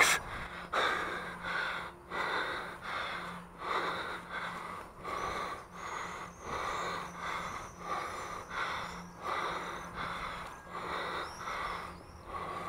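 A person breathing hard in quick, even breaths, a little over one a second: out of breath from climbing a tall chimney.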